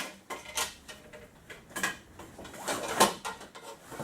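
Cot legs knocking and clattering as they are slid into the cot's fabric carry bag, with the bag rustling between a handful of sharp knocks, the loudest about three seconds in.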